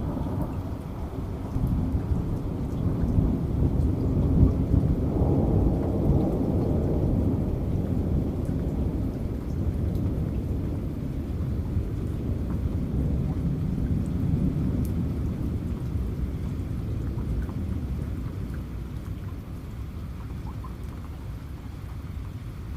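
Steady rain with a long, deep roll of thunder that builds over the first few seconds, then slowly dies away.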